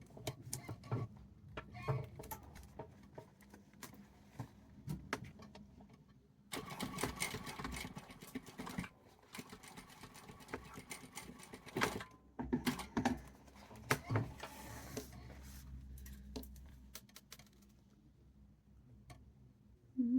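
Sewing machine stitching a bag seam closed. It runs in one steady stretch of rapid stitches for about five seconds in the middle, then in a few short bursts, with handling clicks and knocks before and after.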